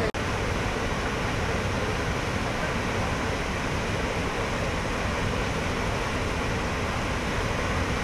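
Kivach waterfall rushing steadily, a dense even roar of water pouring over rock. It breaks off for an instant just after the start.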